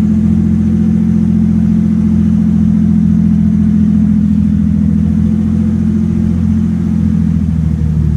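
Water-jet patrol boat's engine running with a loud, steady low drone, heard from inside the helm cabin; it eases off slightly near the end.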